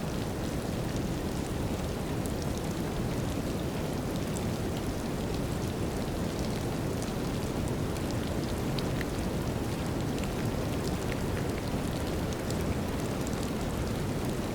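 Steady deep brown noise with light rain over it, scattered raindrop ticks, at an even level with no thunder clap.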